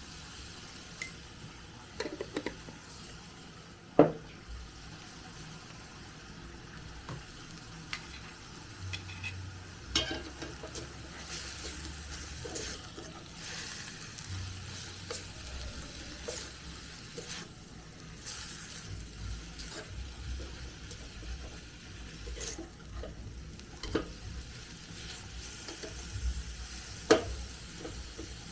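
A spoon stirring leafy greens in a cooking pot over the heat, with a faint sizzle underneath. Scattered sharp knocks of the spoon against the pot, the loudest about four seconds in.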